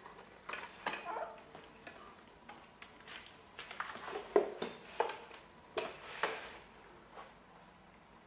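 Irregular clicks, knocks and short rattles of hands working the hot-wedge welding machine and its parts, with no steady motor sound; the loudest knocks come around the middle.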